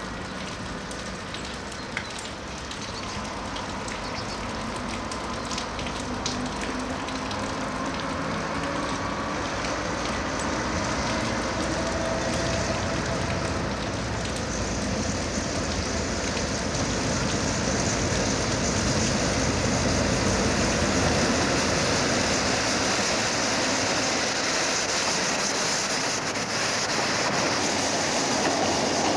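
The diesel locomotive of a narrow-gauge train runs and grows steadily louder as the train draws near, over a constant hiss.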